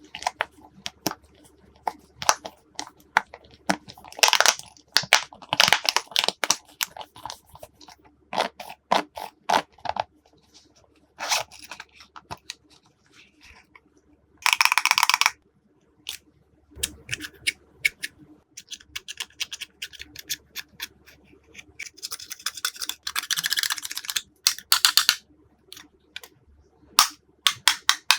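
Glossy slime being mixed and worked by hand: a run of sticky clicks, pops and crackles, with a few longer, denser stretches about halfway through and again near the end.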